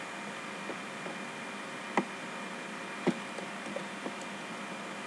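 Two sharp clicks from a computer mouse, about a second apart, with a few fainter ticks, over a steady microphone hiss and faint electrical hum.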